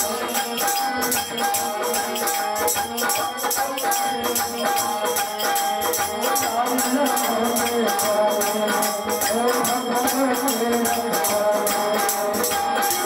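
Devotional kirtan (bhajan) music played live: a harmonium holding steady chords, a hand-played barrel drum, and jingling hand percussion keeping an even fast beat, with a man singing into a microphone.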